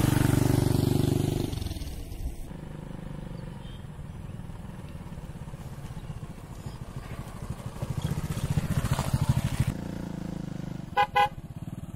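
A motorcycle engine running close by that fades away over the first two seconds. Later a TVS XL100 moped's small single-cylinder four-stroke engine comes nearer and grows loud about eight to nine seconds in, then two short horn beeps sound near the end.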